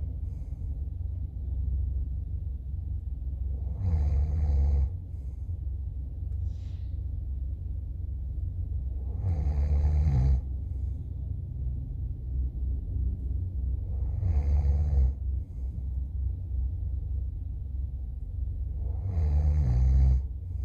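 A person snoring: four snores about five seconds apart, each lasting about a second, over a steady low rumble.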